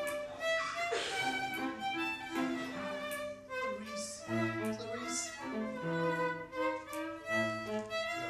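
Background music led by a violin playing a melody of quick changing notes, with lower notes beneath.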